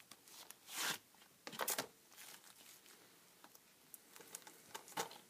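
Cardboard slipcover being slid off a plastic Blu-ray case: two brief scraping swishes about a second in and a little later, then a short sharp rustle near the end.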